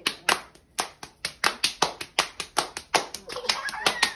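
A quick, even run of sharp hand claps, about three a second, starting right after a countdown.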